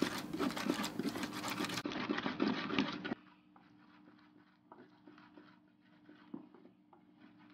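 Pestle grinding chopped pepper, onion and stinking fish in a grinding bowl: a quick run of wet scraping strokes for about three seconds, then it cuts off to quiet with a few faint ticks.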